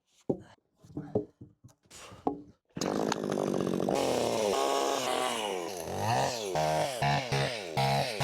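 A few scattered knocks, then a two-stroke gas chainsaw starts about three seconds in and runs, revved up and down repeatedly, roughly once a second.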